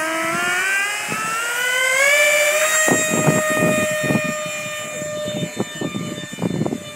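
RC model Gloster Meteor jet's motors spooling up with a rising whine over the first two seconds or so. The whine then holds steady at full power through the take-off run and climb-out, slowly fading as the model flies away. Irregular low rumbles come and go in the second half.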